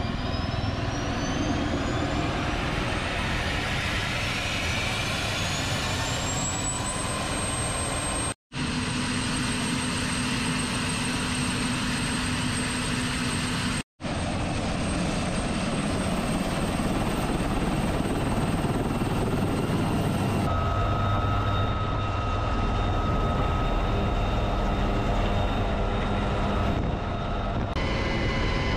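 UH-1Y Venom helicopter's twin turboshaft engines and rotor running on the ground. A high turbine whine rises steadily in pitch over about the first seven seconds, then holds level above a dense engine and rotor noise. The sound cuts out briefly twice.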